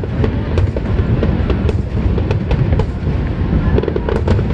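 Fireworks display: a constant low rumble of shell bursts, with many sharp cracks and crackles several times a second.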